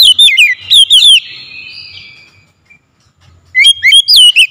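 Oriental magpie-robin calling loudly in two bursts of quick, sweeping whistled notes: one right at the start and another about three and a half seconds in.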